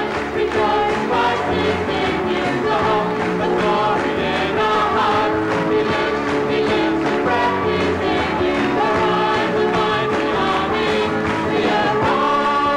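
Live church band playing an upbeat song with singing: acoustic guitar, drums and keyboard over a steady beat.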